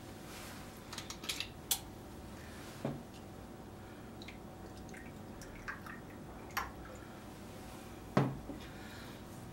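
A glass bottle and a small glass being handled on a table: scattered light clinks and knocks, with liquid poured from the bottle into the glass. A louder knock comes near the end.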